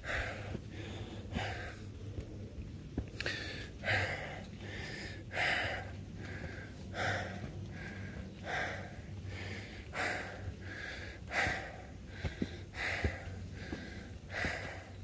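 A hiker's hard breathing while climbing a flight of trail steps, one loud breath about every second and a half in a steady rhythm: the sound of a climber out of breath from the effort.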